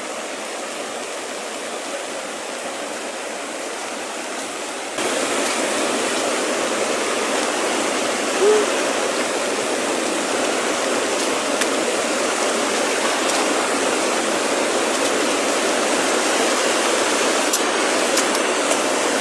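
Rushing floodwater of a swollen small river, a steady churning noise that turns suddenly louder about five seconds in.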